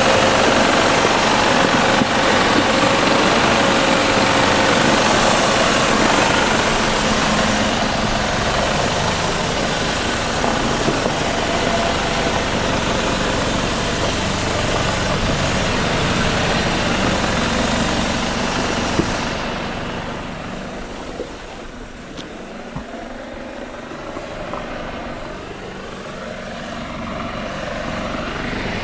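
Mercedes-Benz Unimog U4023's four-cylinder diesel engine running as the heavy camper truck creeps down a loose gravel slope in a crawler gear. The sound is loud and dense at first, then drops off and thins out about 20 seconds in as the truck draws away.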